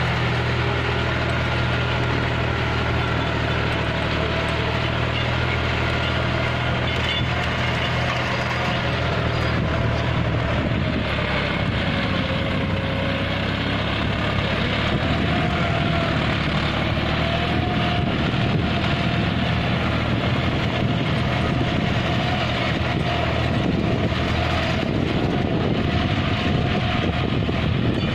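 John Deere 5050D tractor's three-cylinder diesel engine running steadily, with a higher whine that wavers slightly in pitch.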